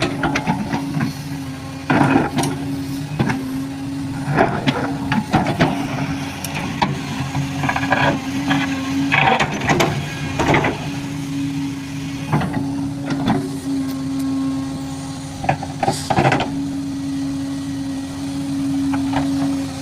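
Heavy machinery's engine running with a steady hum, while sharp knocks and clatters sound irregularly, several of them loud.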